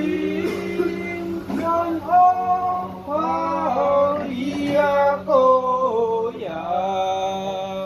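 A voice singing a slow, melodic chant with long held, wavering notes and gliding pitch, over a steady low hum.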